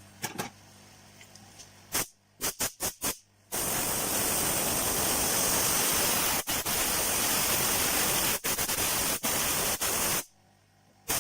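Air hissing hard from a nozzle: a few short blasts, then one long steady blast that cuts off sharply near the end.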